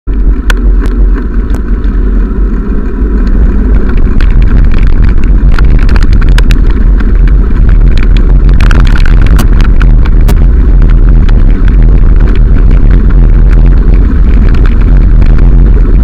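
Wind buffeting the microphone of a camera moving at riding speed: a loud, steady low rumble that grows a little over the first few seconds. Scattered clicks and rattles from the ride over the path run through it.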